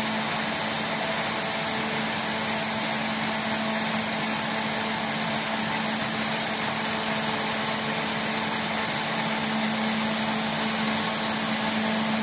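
Supersnow fan snow gun running steadily: a constant rush of air and spray from the fan and nozzle ring over a steady low hum.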